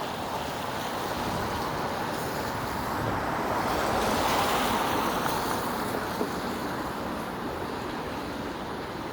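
Road traffic on wet pavement: a passing vehicle's tyres hiss, swelling to their loudest about four seconds in and then fading away.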